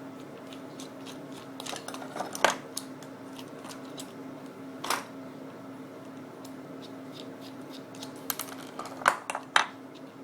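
Small clicks, taps and knocks of hands and tools working on a plastic webcam casing, with sharper knocks about two and a half seconds in, at about five seconds, and twice near the end, over a faint steady hum.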